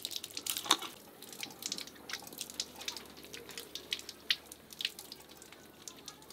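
Thin stream of water from an outdoor tap running over hands and vegetables being rubbed clean beneath it, with many small splashes and drips.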